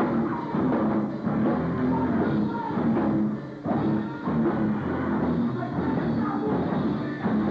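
A live rock band playing loud, heard through a camcorder's microphone with the highs dulled, dropping briefly about three and a half seconds in.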